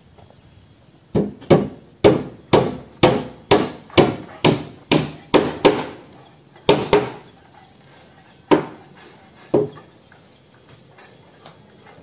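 Hand tapping a small tool into a wooden board: a run of about eleven sharp strikes, roughly two a second, then four scattered strikes, each with a short ringing tail.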